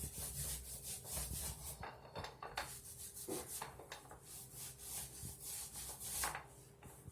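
A paintbrush brushing paint onto a wall in repeated scratchy rubbing strokes, with a pause about two seconds in.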